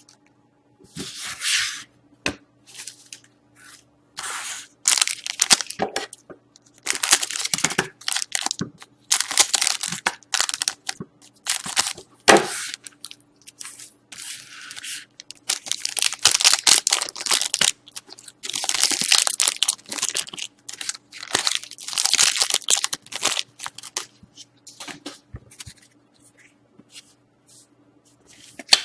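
Foil trading-card pack wrappers being torn open and crinkled, in repeated irregular rips and crackles of a second or two each.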